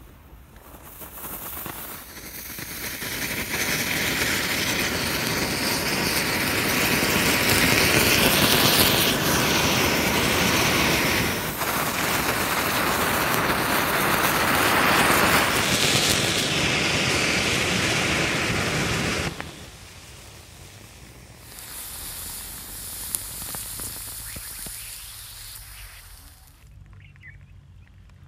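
An anar (flower-pot fountain firework) burning, its spray of sparks making a loud, steady rushing hiss. The hiss builds over the first few seconds, cuts off suddenly about two-thirds of the way through, comes back more quietly for a few seconds, then stops.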